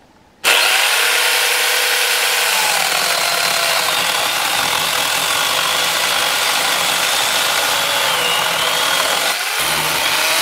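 Electric angle grinder fitted with a chainsaw adaptor, running at speed with a steady whine that wavers slightly in pitch. It starts suddenly about half a second in.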